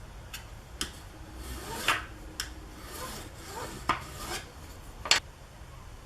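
Cork sheet being cut into strips by hand: scraping cutting strokes with several sharp clicks, the loudest about five seconds in.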